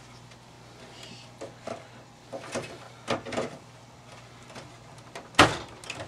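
Scattered light clicks and knocks of a video card being handled and fitted into a Power Mac G3 computer case, ending in one sharp, louder knock about five and a half seconds in.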